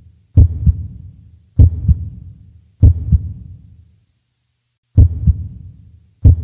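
Heartbeat sound effect: a deep double thump, lub-dub, repeating about every 1.2 seconds, with one beat left out about two-thirds of the way through.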